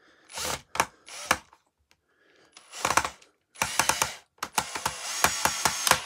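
Cordless screwdriver driving a screw back into the rear-wheel axle of a Shark vacuum power nozzle, run in several short bursts and then a longer run. Rapid ratcheting clicks come in the last two seconds or so as the screw goes home.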